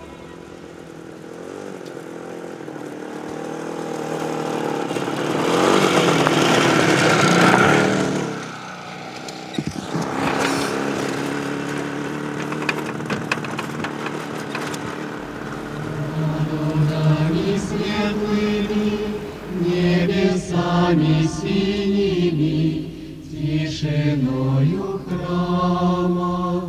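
A rushing noise swells to a peak about seven seconds in and fades away. About sixteen seconds in, a choir starts chanting a slow hymn over a low musical bed.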